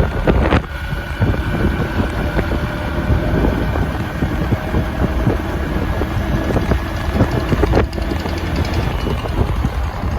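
Wind buffeting the microphone in a steady, loud low rumble, with a faint steady engine hum underneath.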